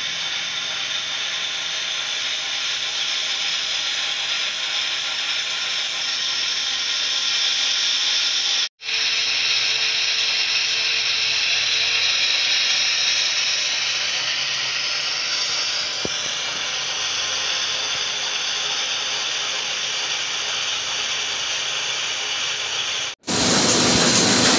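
Printing press running: a steady mechanical whirring hiss. It cuts off abruptly twice and is louder after the second cut, near the end.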